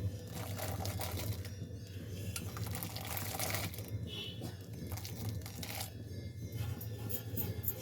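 A metal spoon stirring and scraping in a pot of thickened milk with semolina, clinking on the pot's sides in an irregular rhythm over a low steady hum.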